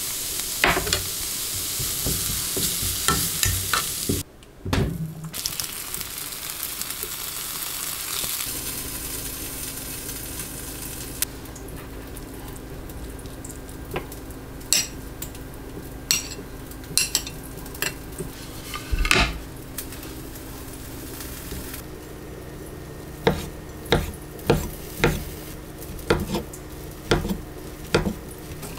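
Food sizzling in a frying pan while a utensil stirs and scrapes it. After about eight seconds the sizzle gives way to a steady low hum with scattered sharp clinks and knocks of a utensil against dishes, coming faster near the end.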